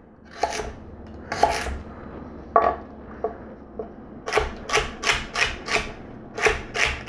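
Chef's knife cutting celery sticks on a wooden cutting board while mincing them into very small pieces. A few spaced cuts come first, then a steady run of quicker chops, about three a second, from about four seconds in.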